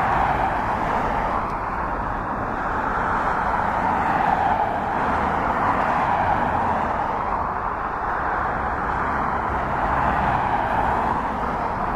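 Jet engines of a Boeing 777-300 airliner running at taxi power as it rolls past: a steady rushing noise that swells and eases slowly.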